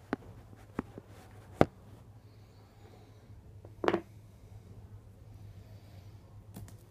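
Handling noises from opening a boxed earbook set: a few sharp clicks in the first two seconds, then a brief scrape about four seconds in.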